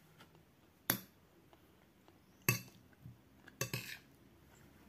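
Metal spoon clinking against a dinner plate while scooping up food: a sharp clink about a second in, another midway, and a short cluster of clinks near the end.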